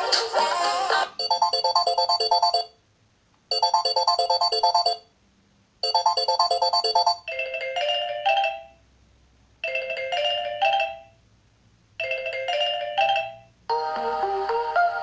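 Samsung Galaxy A6 ringtones: a short electronic melody of quick notes in phrases about a second and a half long, separated by brief pauses, changes to a lower phrase with sliding notes halfway through. A fuller tune ends just after the start, and another begins near the end.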